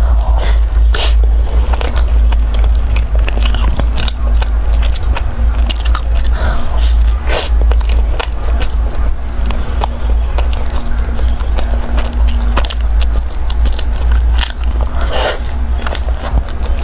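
Close-up biting and chewing of a flaky pastry: many crisp crackles and crunches with wet mouth sounds, over a steady low hum.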